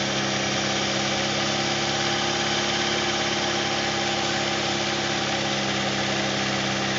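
2007 Chevy Cobalt's four-cylinder engine running steadily at a raised speed, held at about 2,000 rpm with the air intake removed, during a Sea Foam intake cleaning.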